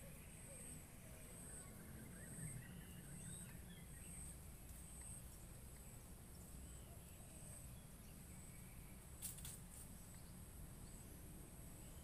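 Faint outdoor ambience: a steady high insect drone pulsing about once a second, with faint bird chirps in the first few seconds and a brief click near the end.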